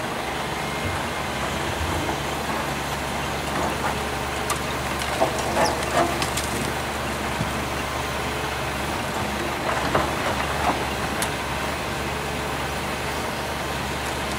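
Volvo EC210CL crawler excavator's diesel engine running steadily under hydraulic work while the machine loads broken concrete. A few sharp clanks and knocks come in the middle, and a few more later, from concrete pieces being handled in the steel bucket.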